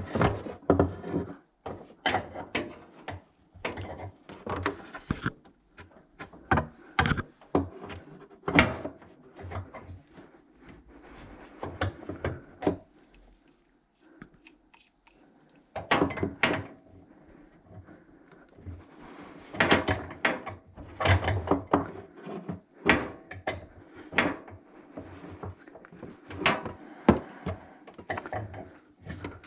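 Irregular knocks, clunks and scrapes of wooden kitchen-unit drawers and panels being handled and moved, with a short lull about halfway through.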